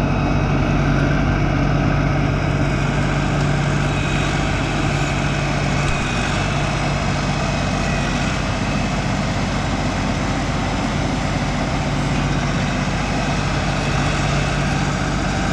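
LS MT342 hydrostatic compact tractor's diesel engine running steadily as its front-loader grapple works the creek bank, with a faint high whine over it.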